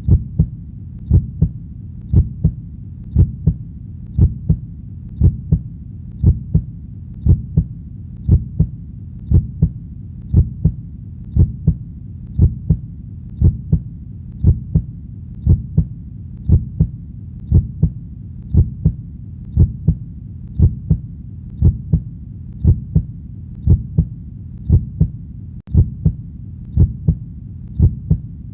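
Heartbeat, a steady lub-dub double thump about once a second, over a low hum. Near the end there is a momentary dropout.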